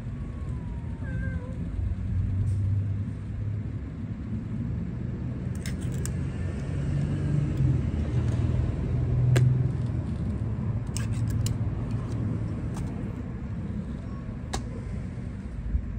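A cat meows once, briefly, about a second in, over a steady low vehicle rumble. A few sharp clicks are scattered through the second half.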